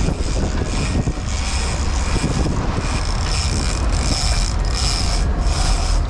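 Big-game fishing reel being cranked to bring in a hooked mahi-mahi, its gears clicking in an even rhythm of a bit more than one turn a second, over the steady low rumble of the boat.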